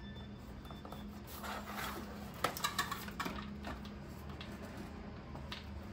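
Cardboard doll box and its packaging being handled: rustling, with a run of light clicks and taps about halfway through.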